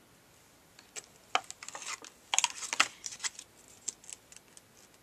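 Hands handling a thin plastic blister tray and packaging: a run of crinkles and sharp clicks, densest about two and a half seconds in, then a few scattered clicks.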